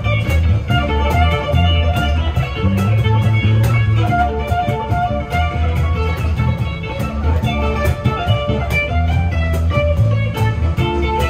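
Live band playing an instrumental on electric bass and guitar, with plucked melody notes over a walking bass line and a steady beat.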